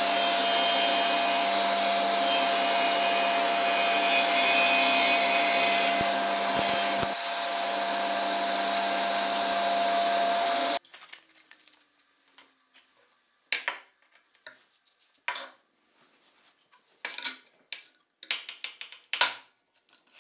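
Table saw running with a steady motor whine as a wooden board is cut through it, stopping suddenly about eleven seconds in. After that, about five light knocks and clicks of a plywood jig and wood strips being set down and handled on the saw's table.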